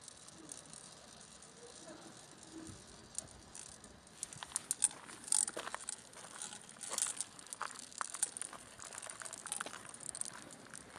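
Glass marbles rolling and clicking down through a carved stone marble run: a faint rattle of small clicks, which grows denser and louder about four seconds in.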